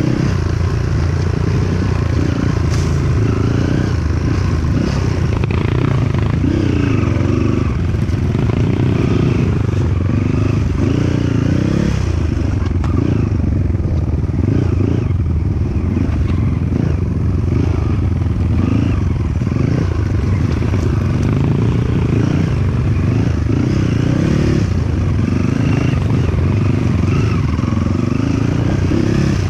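Dirt bike engine running while ridden off-road, its pitch rising and falling constantly as the throttle opens and closes.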